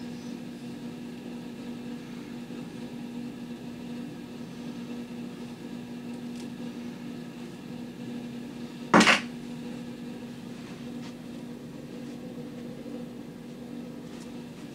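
A steady low hum, with one short, loud knock about nine seconds in.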